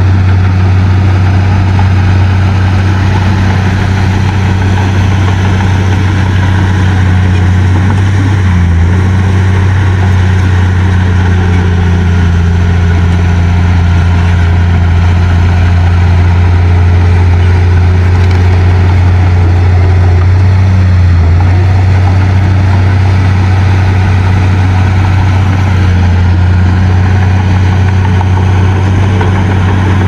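Heavy-equipment diesel engine running steadily at a near-constant speed, with brief dips in pitch about 9 and 21 seconds in.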